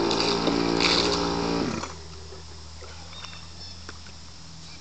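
Weed-wacker two-stroke engine running steadily on a home-built R/C boat, then dropping sharply in speed and level about a second and a half in, leaving a faint low hum. The throttle servo is giving no response, which the owner puts down to a popped-off linkage or a wet or burnt-out servo.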